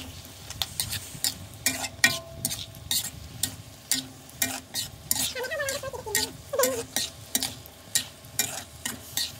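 Metal spatula scraping and clinking against a steel wok in quick repeated strokes, stir-frying a wet mixture of watermeal and ground pork, with a steady sizzle underneath.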